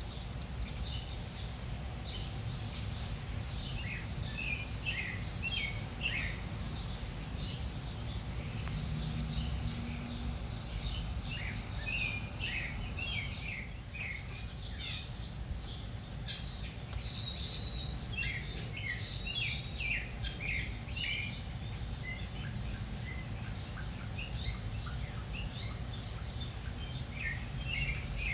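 Backyard outdoor ambience: several songbirds chirping and calling throughout, with a rapid trill near the middle, over a steady low rumble.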